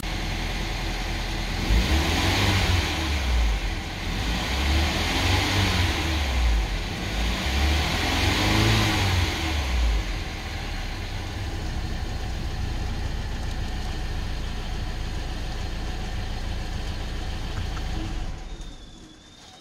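BMW N13 1.6-litre turbocharged four-cylinder petrol engine running, revved up and let fall back three times, then settling to a steady idle. Near the end the engine is switched off and the sound drops away.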